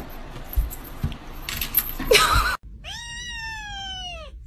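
Rustling and a few knocks, then, after a short break, a tabby kitten giving one long meow that rises and then falls in pitch near the end.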